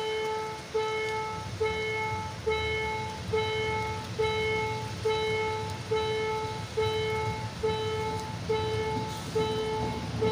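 Railway level-crossing warning bell ringing over and over, a little more than once a second, each ring a clear tone that starts sharply and fades. Under it, the low engine rumble of an approaching heavy track-maintenance train grows near the end.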